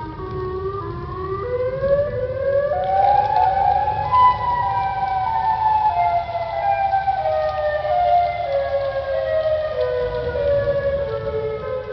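Emergency alert alarm tone: a chord of several electronic tones that climbs in small steps for about four seconds, then steps slowly back down, over a low rumbling hiss.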